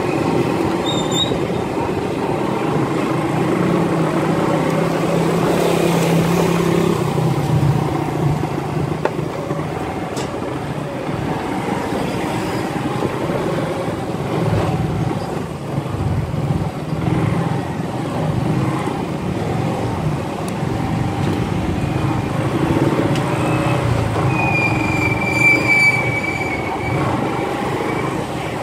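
Motorcycle engine running while riding, its note shifting as the speed changes, with road noise. A short high-pitched whine sounds near the end.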